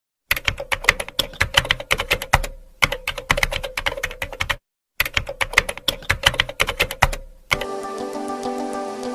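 Rapid keyboard typing clicks in two runs of a few seconds each, split by a short silence. Soft music comes in near the end.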